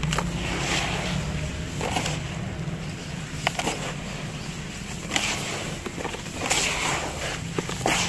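Hands scooping, squeezing and crumbling a damp cement mix in a tub, in gritty crunching, crumbling bursts every second or two as clumps break apart and fall back into the pile. A steady low hum runs underneath.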